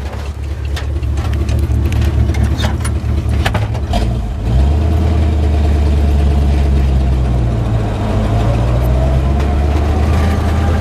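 Flathead V8 of a 1951 Mercury pickup running as the truck backs out and gets under way, with a few clicks and knocks in the first seconds. About four and a half seconds in the engine note steps up and louder, then holds steady and rises slowly near the end as it picks up speed.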